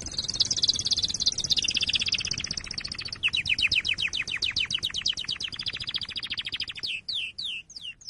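A songbird singing a long, high song: a very fast trill, then a slower trill of quick down-slurred notes from about three seconds in, ending with a few separate down-slurred whistles near the end.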